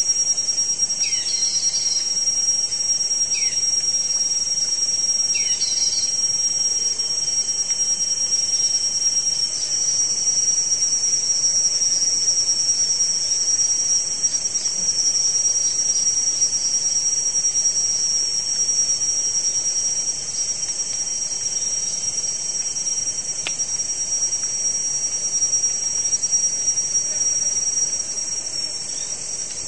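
Loud, steady, high-pitched drone of tropical rainforest insects. A few short falling chirps sound in the first six seconds, and the highest tone drops out near the end.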